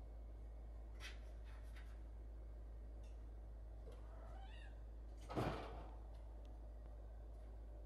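A cat gives one short meow, then a thump and rattle from the wire pet cage as the kitten jumps up onto the cage's upper shelf. There are a few light clicks from the cage before the meow.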